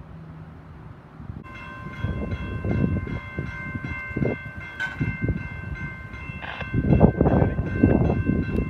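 Locomotive air horn held in one long, steady chord of several tones, starting about a second and a half in, from the CP C44-9W leading an approaching freight train that is not yet in sight. A low, uneven rumbling noise runs underneath and grows louder near the end.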